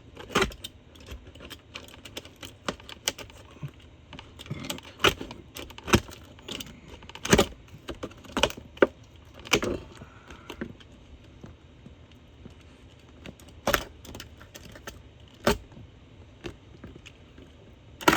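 Scissors cutting: a run of sharp, irregular snips and clicks at uneven gaps, with small handling rattles between them.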